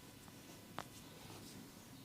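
Near silence: room tone, with one faint short click a little under a second in.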